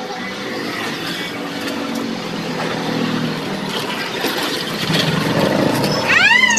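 Steady background engine noise from vehicles running nearby, with a brief tone that rises and then falls just before the end.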